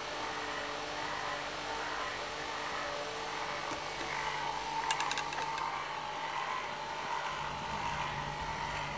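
Small 12-volt DC clip-on fan running with a steady hum, with a short run of quick clicks about five seconds in as the fan's clip mount is handled.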